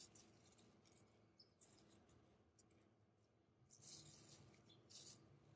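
Near silence with faint rustling of spinach leaves being handled and picked by hand, a few soft crackles about four and five seconds in.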